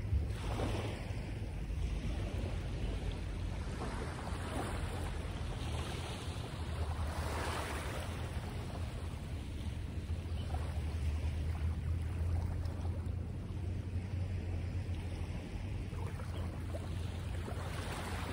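Wind rumbling steadily on the microphone, with a broad hissing wash that swells and fades several times.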